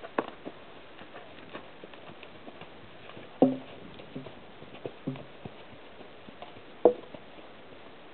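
Horse's hooves on a sand arena, with soft scattered steps and a few sharper knocks, the loudest about three and a half and seven seconds in.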